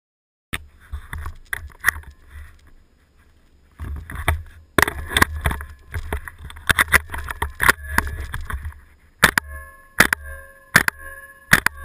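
WE PDW gas blowback airsoft rifle firing, each shot a sharp crack with the blowback bolt cycling, at an uneven pace of several shots a second in places, over a low rumble.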